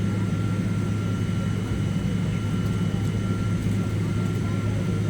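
Jet airliner cabin noise: a steady low drone of engines and airflow heard from inside the passenger cabin, with a faint steady high whine over it.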